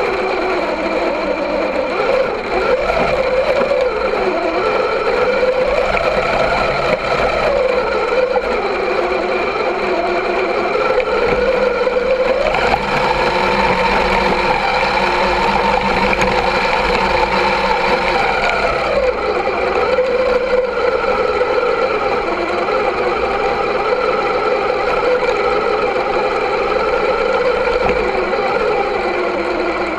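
Electric motor and geared drivetrain of an Axial SCX10 II RC crawler whining as it drives through snow, heard close up from a camera on the truck. The pitch rises and falls with the throttle, climbing higher for several seconds in the middle.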